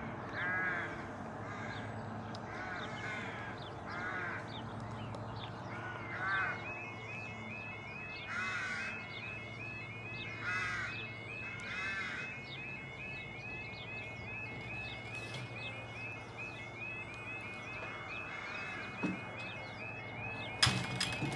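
A crow cawing, about eight short calls spread over the first twelve seconds. A fast, even, high repeating tone starts about six seconds in and carries on, and a sharp click comes near the end.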